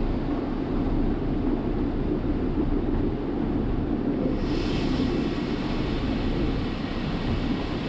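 Steady low mechanical drone of farm machinery running, with a hiss added from about four seconds in.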